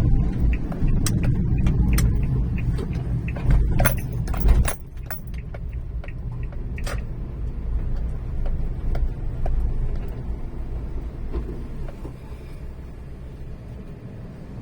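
Typhoon-driven waves breaking over a seawall: a heavy, low surf rumble with sharp splashes and spray crackling. It drops off suddenly about five seconds in to a quieter wash, with a single splash around seven seconds.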